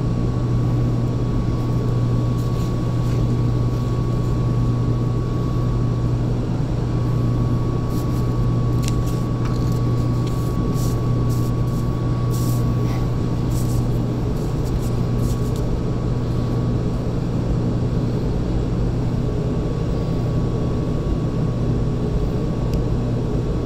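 Steady, loud hum of running industrial machinery, a low drone with a thin constant whine above it, with a few light clicks about a third to halfway through.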